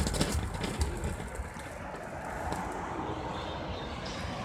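A lit firework fizzing with a steady hiss, with a few crackles in the first second or so.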